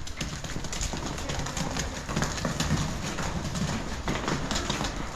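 Steers' hooves clattering and knocking irregularly as the cattle are driven along.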